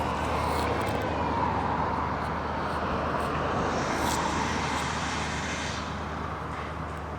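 Steady outdoor engine noise with a constant low hum, easing slightly near the end.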